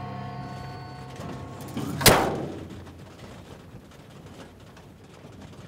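A single loud, sharp bang about two seconds in, ringing away over the following second, as low held music notes fade out.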